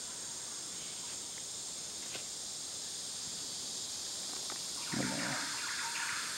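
Steady high-pitched drone of a rainforest insect chorus. About five seconds in, a louder, lower call with rapid pulses joins it.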